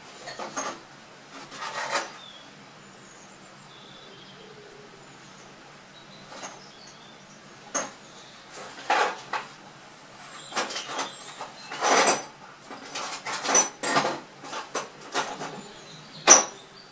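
Metal bolts and tools clinking and clattering as they are rummaged through, in irregular clusters that are busiest in the second half, with one sharp knock near the end.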